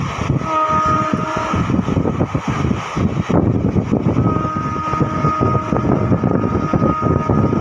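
Horn of the Hazarduari Express sounding as the express runs through the station without stopping: a short blast about half a second in, then a long held blast from about four seconds in, over the loud rumble of the approaching train.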